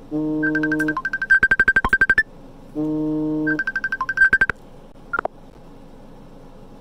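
A repeating electronic jingle: a held tone, then a quick run of beeps, played twice and stopping about four and a half seconds in. A short click follows about a second later.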